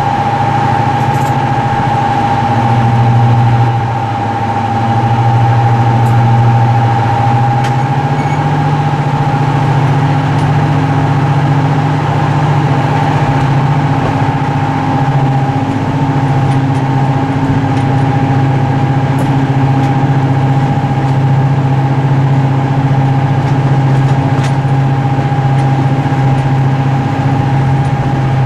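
Class 55 Deltic diesel locomotive's Napier Deltic engines running at idle: a loud, steady low drone with a steady high whistle above it. The engine note steps up slightly about eight seconds in.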